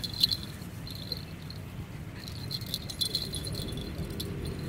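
Metal dog leash and collar hardware jingling in short rattles as the dogs scuffle, loudest about a quarter second in and again around the three-second mark.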